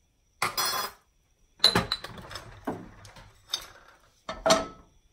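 Kitchenware clattering: about five separate clanks and clinks with short ringing tails, the loudest about half a second in and near the end.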